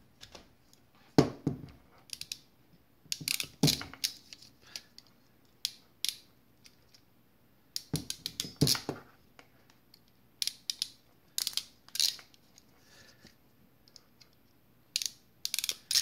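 Ratcheting hand crimping tool clicking in several short runs of clicks as it crimps terminals onto wire ends.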